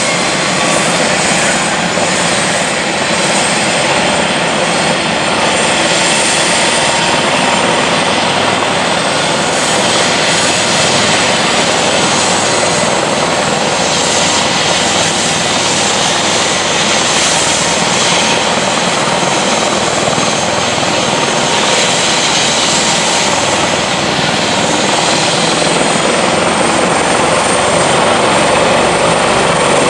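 Airbus H145 air-rescue helicopter running on the ground with its rotor turning: a steady turbine whine over rotor and engine noise, growing a little louder near the end.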